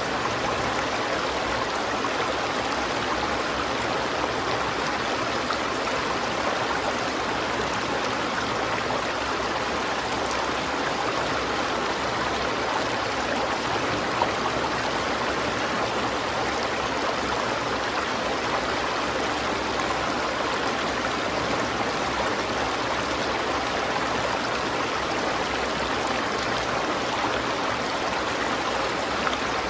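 River water flowing steadily over rocks, an even rushing and babbling.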